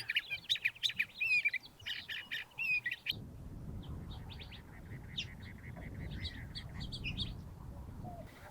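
Curve-billed thrasher singing: a rapid run of rich, varied warbled phrases with quick up-and-down notes. About three seconds in, the song stops abruptly and gives way to sparser, scattered high chirps over a low background rumble.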